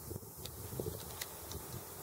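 Wind buffeting the microphone in uneven low gusts over a steady rush, with a few faint clicks.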